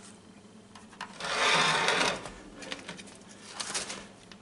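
Kitchen handling sounds: a scraping rub lasting about a second as a plate is slid across a plastic cutting board and hake steaks are handled, followed by several light clicks and taps as a steak is pressed into flour.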